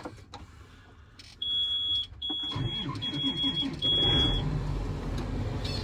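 John Deere 8370R tractor starting from the cab: four long, high warning beeps sound as the key is turned, and about two and a half seconds in the diesel engine cranks and catches, settling into a steady low idle.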